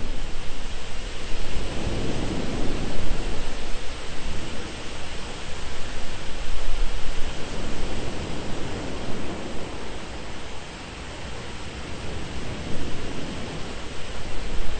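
Thunderstorm ambience: a steady hiss of heavy rain over a deep low rumble, the whole swelling and easing, with a brief lull near the end.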